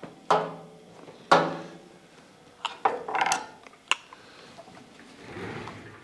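Handling noise at an automated dust-collection blast gate and its switch: two sharp knocks that each ring briefly, then a quick run of light clicks and a soft rustle near the end.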